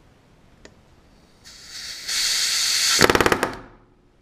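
Pneumatic rivet gun with a back-rivet set, back-riveting an aluminium stiffener to the skin: a hiss of air that grows loud about halfway in, then a short rapid hammering burst of about half a second. The owner takes this rivet for a mistake, driven where it was not over the back-riveting plate.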